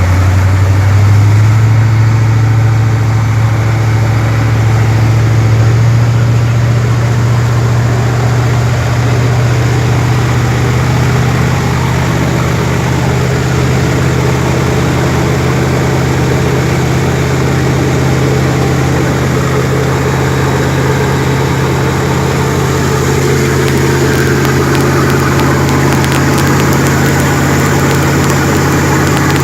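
Jet boat engine running loud and steady, its pitch stepping up about a second in and then rising slowly.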